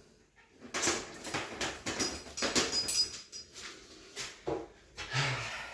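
Irregular clicking and clattering of metal bicycle parts being handled while a wheel is fitted to a mountain bike frame, with a brief high metallic ring about halfway through.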